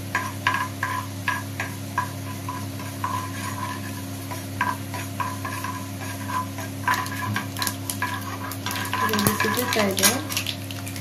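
Mustard and cumin seeds sizzling in hot oil in a tempering pan while a metal spoon stirs them, clinking against the pan about twice a second, faster near the end, over a steady low hum.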